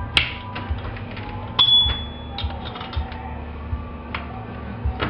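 Irregular clicks and knocks of metal hand tools working on a disassembled two-stroke chainsaw crankcase, with a short metallic ring about one and a half seconds in.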